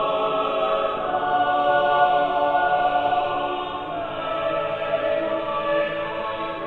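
Chamber choir singing slow, sustained chords, the held notes shifting to a new harmony about four seconds in.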